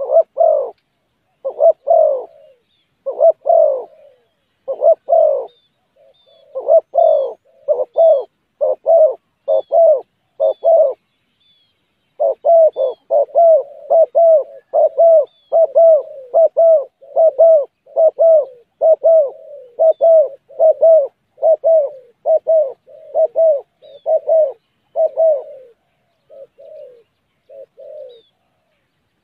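Spotted dove cooing over and over, a long run of low coo notes with a brief pause about a third of the way in and a few fainter notes near the end. Faint high chirps of small birds sound now and then.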